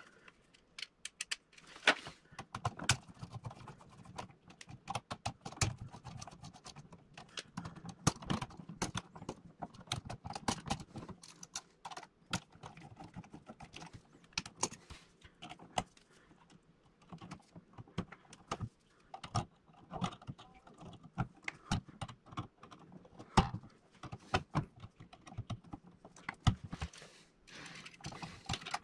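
Screwdriver and fingers working a wall switch's terminal screws and wires: irregular small clicks, taps and scrapes of metal on metal, with a few louder clicks among them.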